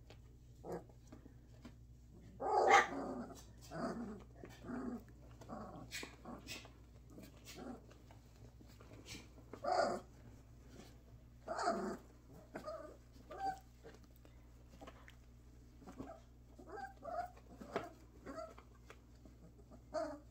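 Three-week-old Bordoodle puppies growling and giving short puppy calls as they play, in scattered short bursts, the loudest about three seconds in and again around ten and twelve seconds.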